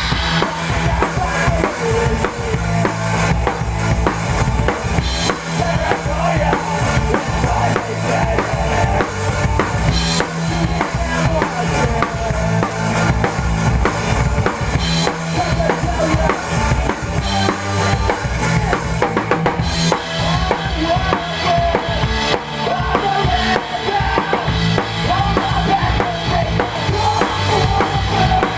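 A rock band playing live, with the drum kit loud and close: kick drum and snare driving the beat over the rest of the band.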